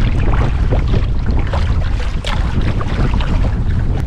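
Wind buffeting a deck-mounted microphone in a steady low rumble, over irregular splashing and lapping of choppy water against a sea kayak as it is paddled.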